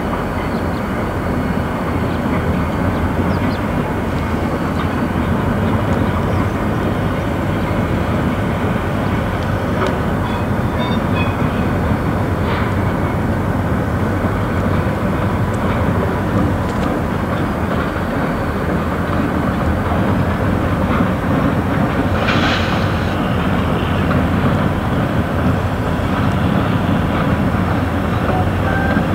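Diesel-hauled freight train rolling slowly through a rail yard: a steady rumble of locomotives and cars on the rails, with a brief sharper noise about 22 seconds in.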